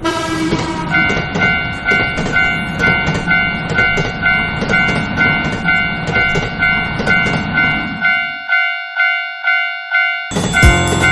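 Railroad crossing alarm ringing its steady repeated dings (the Japanese "kan kan") while a train rumbles past. The train noise stops about eight and a half seconds in, leaving the crossing bell ringing alone, and other sound comes in near the end.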